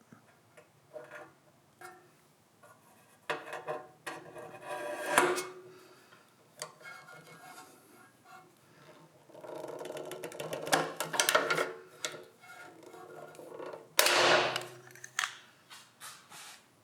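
Hand-handling noises: scattered clicks and knocks, a stretch of steady rubbing and scraping in the middle, and a louder short scrape about 14 seconds in.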